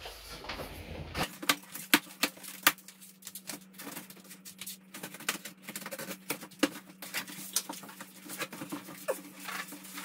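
Large cardboard box being opened by hand: packing tape picked at and pulled off, and the cardboard flaps crackling and rustling. The sound is an irregular run of sharp clicks and crackles that starts about a second in.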